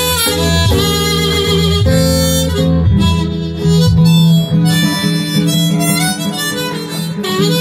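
Blues harmonica in a neck rack playing a solo line, with some bent notes, over acoustic guitar accompaniment.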